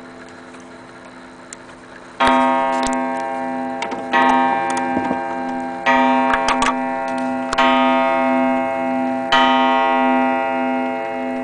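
Antique Junghans wall clock striking five times, one ringing blow about every two seconds, each left to ring on until the next. Before the first blow its pendulum movement ticks faintly.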